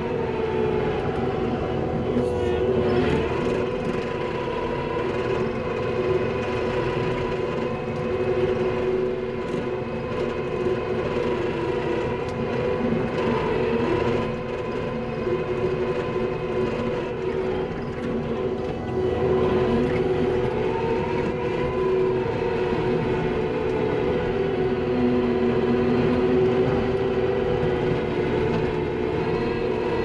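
Skid steer engine and hydraulics running a power rake attachment as it works the dirt, heard from inside the cab: a steady mechanical drone whose pitch dips and rises a little now and then.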